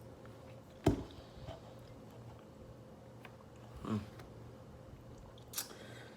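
A person sipping an orange drink from an MRE beverage pouch or cup, with mouth sounds and handling knocks: a sharp knock about a second in, a softer one about four seconds in, and a click near the end, over a faint steady hum.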